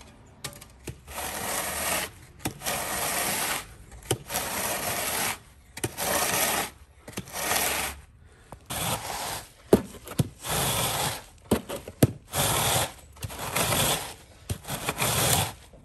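Timber screed board being dragged back and forth across a loose sand bedding layer: a run of gritty scraping strokes, about one a second, with a few sharp clicks among them as the bed is levelled before laying block paving.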